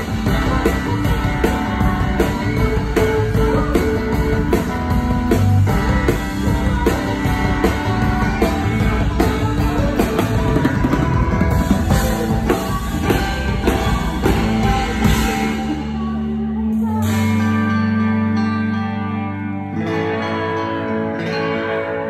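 Live rock band: electric guitar, bass and drums with a woman singing. About two-thirds of the way through the drums drop out and the guitar and bass hold sustained chords.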